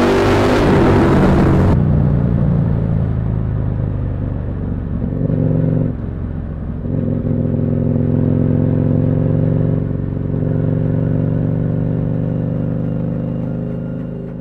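Twin-cylinder motorcycle engine and exhaust, heard from the rider's seat. It first accelerates loudly with tunnel echo, then after an abrupt cut runs steadily on an open road, with a brief drop in level about six seconds in.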